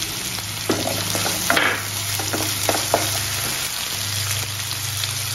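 Grated ginger, garlic-chilli paste and a green chilli sizzling in hot oil in a nonstick kadhai. A slotted spatula stirs and scrapes the pan a handful of times between about one and three seconds in.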